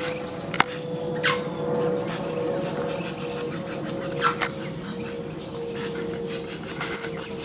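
A steady droning hum with a slightly wavering mid-pitched tone over a low rumble, the sky noise the uploader takes for a strange aircraft. Three short, high, falling calls cut across it, about half a second in, just over a second in and about four seconds in.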